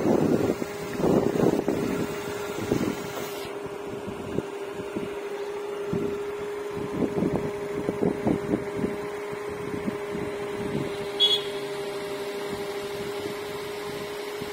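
Nissan Magnite's three-cylinder petrol engine idling with a steady hum shortly after a cold start, when the engine is loud until the engine oil has spread through all the parts.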